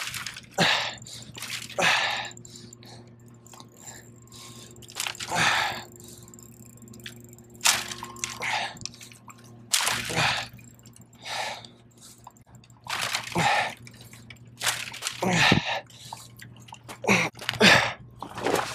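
A man breathing hard in irregular heavy puffs while straining against a big hooked fish. Dry brush rustles close by between the breaths.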